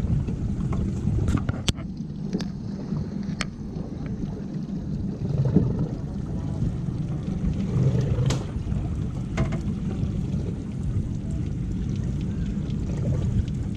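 A boat's engine running with a steady low rumble. Sharp knocks come through it, several in the first few seconds and a couple more a little past the middle.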